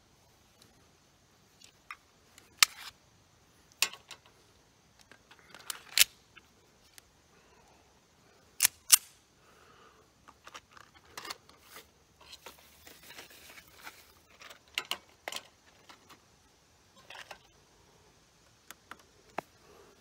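Irregular small metallic clicks and rattles of .22 LR cartridges being handled and pressed one by one into a Walther P22Q pistol magazine, with a few sharper clicks among them.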